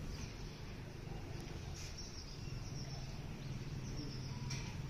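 Faint outdoor ambience: a steady low rumble with a thin high hiss and a few soft bird chirps.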